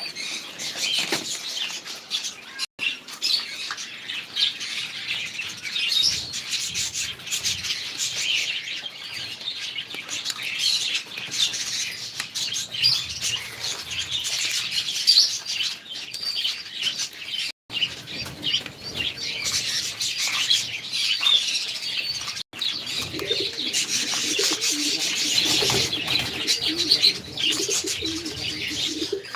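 Many caged birds chirping densely and continuously, with wings fluttering. Low cooing joins in during the last few seconds.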